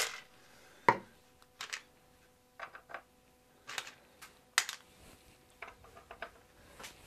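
Small metal screws clicking against each other and a plastic jar lid as they are tipped out and picked through by hand, with one sharper knock about a second in as the plastic jar is put down.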